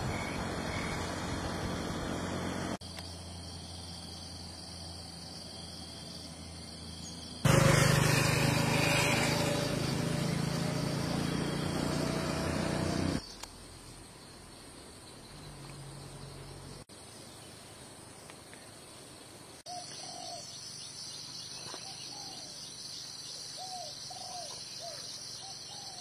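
Natural morning ambience cut together from several recordings: a steady high insect trill, a louder rushing noise for several seconds in the middle, and in the last few seconds a bird calling over and over with short rising-and-falling notes.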